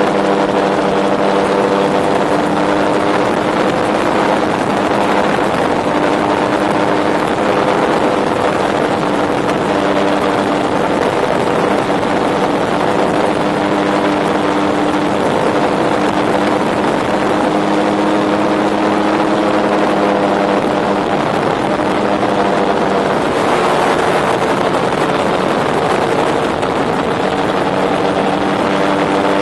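Rotax 914 turbocharged four-cylinder engine and pusher propeller of a Tandem Dominator gyroplane running steadily in flight, its pitch shifting slightly now and then, with wind rushing past the open cockpit.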